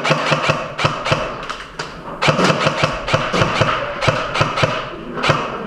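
Airsoft gunfire: rapid, irregular sharp shots and BB hits, several a second, with a brief lull about two seconds in.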